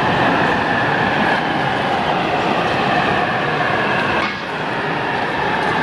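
Gauge 0 model of a V 20 diesel shunting locomotive running along the track pulling a coach: a steady mechanical running noise with a faint steady whine, dipping briefly about four seconds in.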